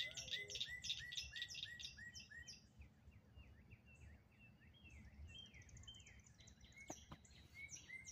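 Faint birdsong: a fast run of repeated high, falling chirps, about five a second, for the first couple of seconds, then scattered, varied calls. Two faint clicks come about seven seconds in, over a low steady rumble.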